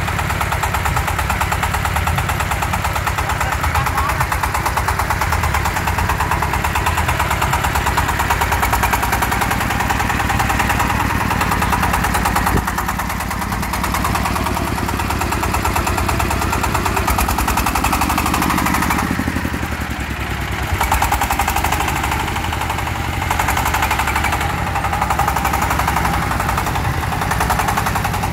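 Single-cylinder diesel engine of a home-built mobile circular-saw vehicle running with a fast, even thumping while the vehicle is driven on a test run. It eases off briefly twice, about halfway through and again about two-thirds of the way in.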